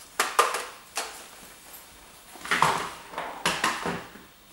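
Hard plastic clicks and clatter from a toy dart blaster being handled and loaded with its ammo clip: sharp clicks about a quarter second in, a cluster about two and a half seconds in, and a few more near the end.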